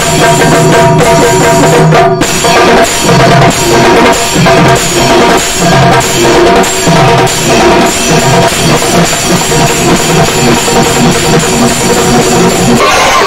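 Rhythmic festival drumming on rope-tensioned barrel drums beaten with sticks, with steady held notes sounding above the beat. Near the end the drumming gives way to crowd shouting.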